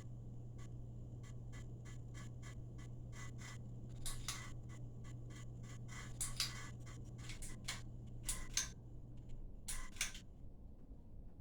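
42-inch Hampton Bay Bridgeton ceiling fan motor humming, with a faint regular tick about three times a second at first. From about four seconds in, scratchy rubbing noises come in, and the hum dies away about three quarters of the way through.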